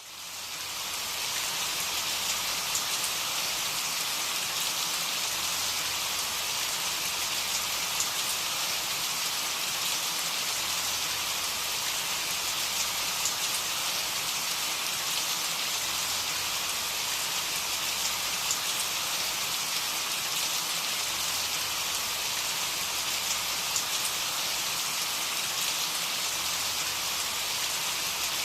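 Steady, dense rainfall, fading in over the first second, with scattered sharper drop ticks in the even hiss.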